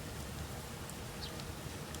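Campfire burning: a steady low rush of the fire with a few faint crackles and snaps of the wood.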